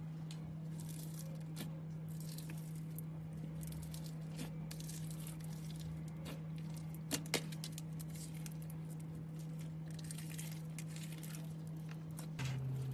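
Slime being squished and worked by hand: soft, irregular crackling and squishing, with two sharp clicks close together about seven seconds in. A steady low hum runs underneath.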